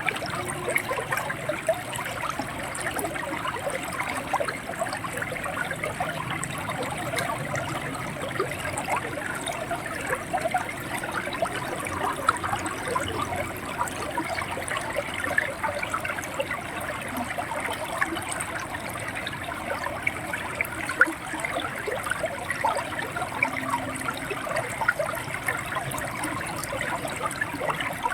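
River water flowing and gurgling steadily, with a constant stream of small splashes and gurgles.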